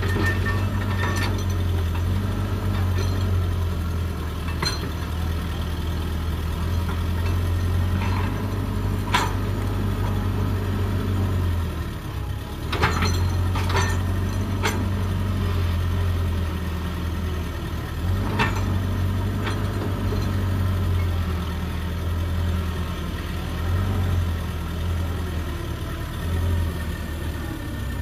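Excavator's diesel engine running steadily with a deep hum that eases off briefly twice, while sharp metallic clanks sound now and then from the machine working.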